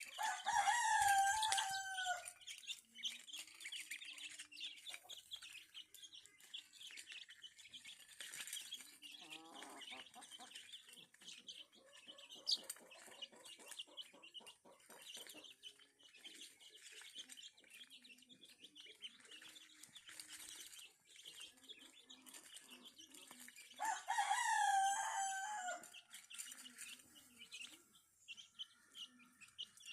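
Rooster crowing twice, once at the start and again about 24 seconds in, over steady high peeping of chicks and hen clucking.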